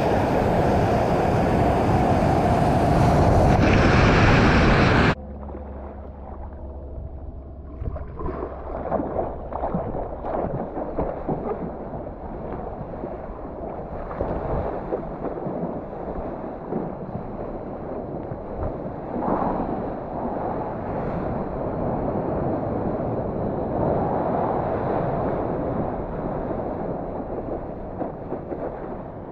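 Loud rushing water and wind noise on a helmet-mounted action camera for about five seconds, cutting off suddenly. Then quieter, uneven splashing and lapping of seawater around a camera held at the surface, with small waves breaking.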